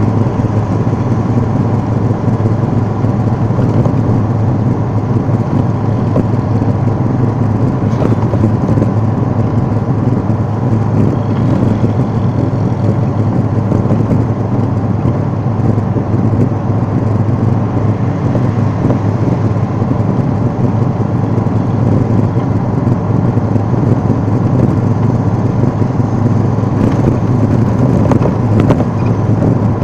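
Steady low drone of engine and road noise heard from inside a moving vehicle's cabin.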